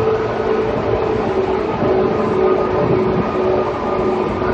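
JR 205 series electric train running at speed, heard from inside the car: a steady whine from its outer-fan traction motors and gearing over the continuous rumble of the wheels on the rails.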